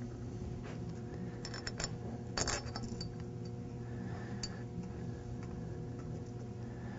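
A few light metallic clinks as stainless steel bolts are handled and set into the steel manifold, bunched between about one and a half and three seconds in, with one more a little later, over a steady low hum.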